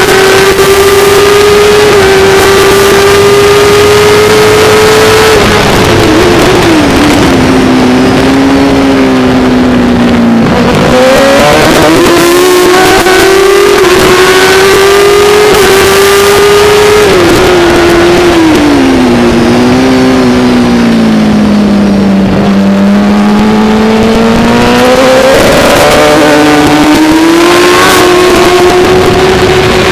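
A racing motorcycle's engine, heard on board and running hard at high revs over a steady rush of noise. Twice the revs fall away as the bike brakes and shifts down for a corner, then climb again as the throttle opens on the exit.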